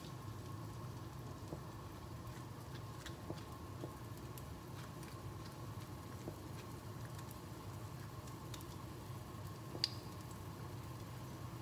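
Gloved hand squeezing and mixing a wet batter of grated zucchini and gram flour in a stainless steel bowl: faint squishing and small clicks over a steady low hum, with one sharper tick about ten seconds in.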